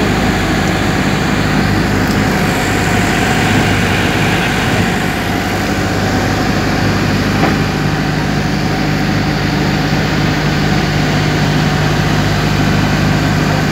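Fishing boat's engine running steadily, a deep even hum that holds unchanged throughout.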